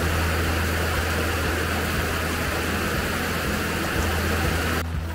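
Torrential rain pouring down in a steady, dense hiss, with a low rumble underneath. It cuts off abruptly near the end.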